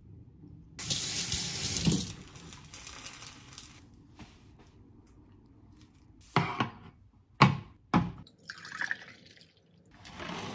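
Kitchen tap running for about a second, then trailing off. A few seconds later come three sharp clacks of dishes being set down.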